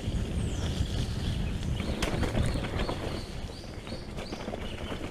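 Mountain bike rolling down a rocky trail: tyres and frame knocking and rattling over the stones under a low wind rumble on the microphone. A few short high chirps come in the second half.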